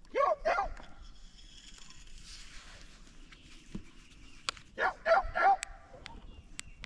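Turkey yelps made by mouth: two short rising-and-falling yelps at the start, then three more about five seconds in, with a few faint sharp ticks late on.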